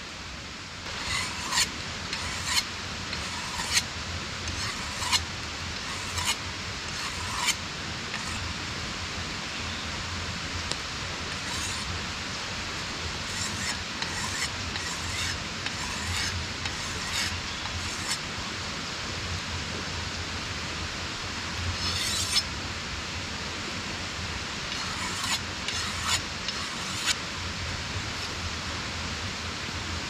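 A hand tool rasping on wood in short scraping strokes, about one a second, in several runs with pauses between. Under it is the steady rushing of a nearby stream.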